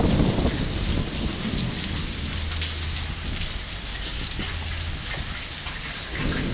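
Hailstones and rain falling on concrete pavement: a steady patter with many small sharp ticks of pellets striking. A low rumble fades away in the first second.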